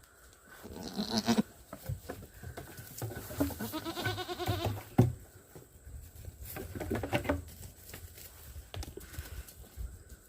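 Goats bleating several times: a short call about a second in, a long wavering call in the middle, and another after it, with scattered knocks between.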